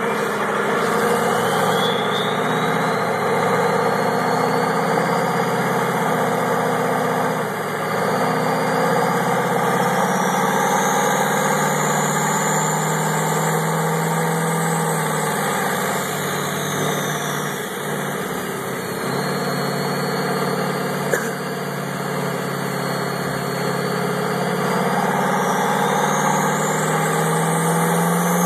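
Diesel pickup engine running on a chassis dyno during a nitrous run: a steady drone with a high whine that rises and falls several times. Near the end the engine note climbs as it goes into the full-power pull.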